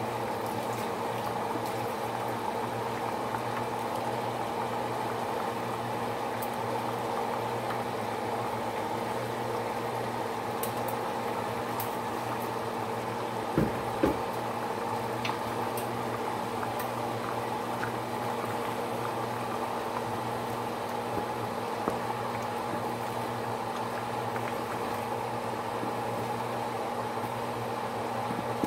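Water boiling in a pan with raw rice heaped in it, a steady bubbling over a steady low hum, with two short knocks about halfway through.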